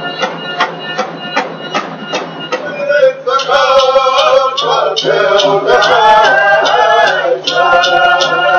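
Native song with a drum beaten in a steady beat, about three strokes a second. Voices sing along, loud from about three seconds in.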